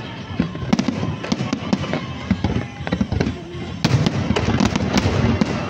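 Aerial fireworks going off in a rapid run of sharp pops and crackles over a low rumble, with the show's music playing underneath. The popping thins out briefly in the middle, then grows denser and louder from about four seconds in.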